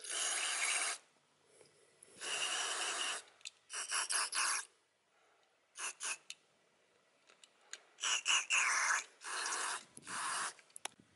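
An aerosol can of airflow sensor cleaner spraying through its thin straw nozzle into an airflow meter, in about seven short bursts of spray with pauses between them, to wash dirt out of the sensor's electronics.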